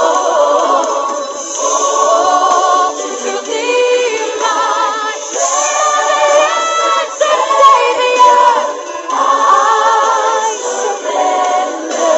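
A choir singing, several voices with wavering vibrato, in short phrases that break off and start again every second or two.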